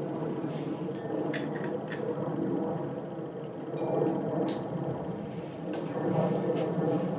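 A low rumbling noise that swells and fades, with a few faint clicks around a second and a half in and again near four and a half seconds.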